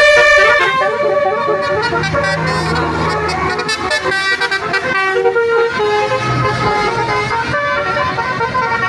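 Bus 'basuri' musical horn playing a melody of short stepping notes, over the low rumble of a passing bus engine.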